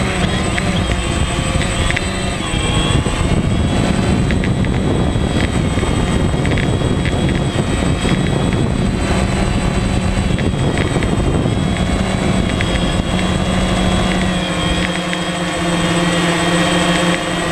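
DJI Phantom quadcopter's electric motors and propellers buzzing steadily, heard from the GoPro mounted on the drone, over a rough rush of wind on the microphone that eases about fifteen seconds in.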